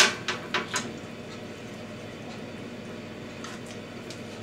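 A few light clinks and knocks of metal in the first second as a pork shoulder joint is set back into an aluminium roasting tin with a meat fork, then only steady faint background noise with a couple of soft taps.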